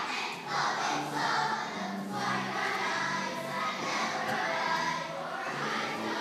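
A choir singing, many voices holding long notes together and moving to new notes every second or so.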